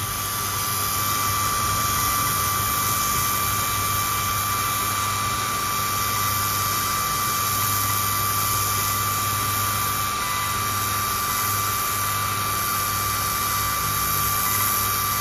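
Sculpfun S9 laser engraver with its 33-watt module and air assist running a slow engraving pass at 10 mm/s: a steady high whine over an even hiss.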